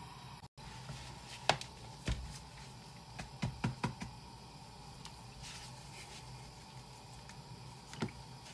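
Faint, scattered soft knocks and handling sounds as a gloved hand works chicken wings through a bowl of flour and lifts them out towards a bowl of water.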